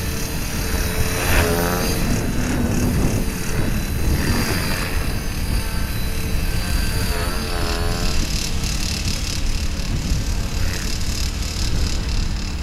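Radio-controlled model helicopter flying, its rotor and motor running with a steady whine, with brief wavering shifts in pitch about a second and a half in and again about seven and a half seconds in.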